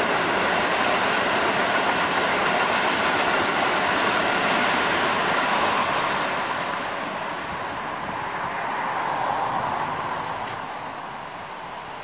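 Keikyu electric trains running past on ballasted track: a steady rumble of wheels and motors, loud at first, easing after about half the time, swelling briefly again, then fading.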